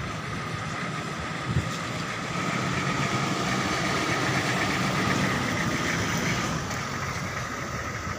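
Humvees driving slowly past, their diesel engines running with a steady low rumble that grows louder for a few seconds mid-way as one passes close, then eases off.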